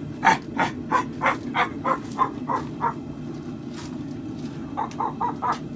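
Forging hammer striking hot steel on an anvil while shaping a khopesh blade. About nine steady blows come at roughly three a second, then a pause, then a quicker run of four or five lighter blows near the end, all over a steady low rumble.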